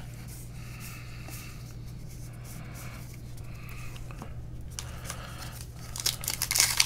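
Trading card pack wrappers crinkling and tearing as packs are handled and opened. It is quiet at first and gets loud and crackly near the end, over a steady low hum.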